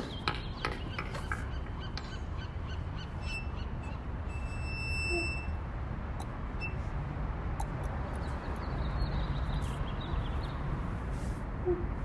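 Low steady rumble of outdoor background noise with scattered light clicks. A high steady whistle-like tone is held for about two seconds, starting about three seconds in, and a short low note sounds at about five seconds and again near the end.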